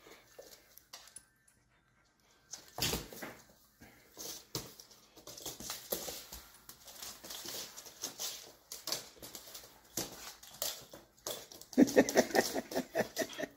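A puppy's claws clicking and scrabbling on a hard wooden floor as it scrambles about. Near the end comes a short run of pitched dog cries, the loudest sound.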